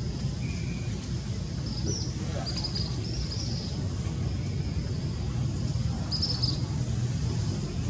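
Outdoor background noise: a steady low rumble with a few short, high-pitched chirps about two to three seconds in and again just past six seconds.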